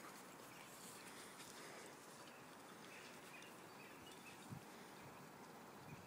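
Near silence: faint outdoor background hiss, with a single soft thump about four and a half seconds in.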